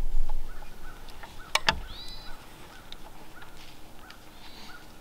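Birds calling in woodland: small chirps repeating every half second or so, and one harsh arched call about two seconds in. Two sharp clicks come just before that call, and a low rumble fades out in the first half-second.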